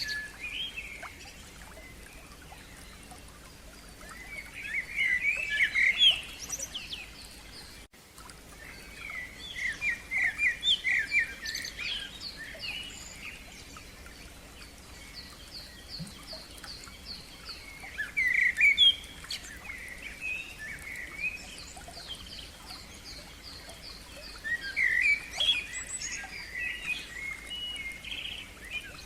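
A songbird singing in separate bursts of varied, chirping phrases, with a long run of quick, evenly repeated high notes in the middle.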